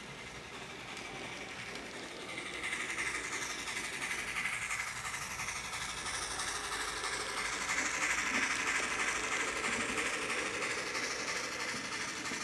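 N scale model steam locomotive and its cars running on the track, with a steady clatter of wheels and motor. It grows louder about two seconds in as the train passes close, then eases near the end.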